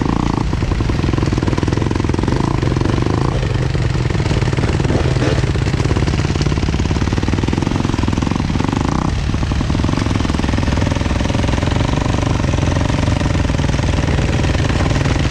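Engine of the vehicle towing a dead motorcycle, running steadily with a rapid, even pulse. Its pitch shifts a few times as the throttle changes.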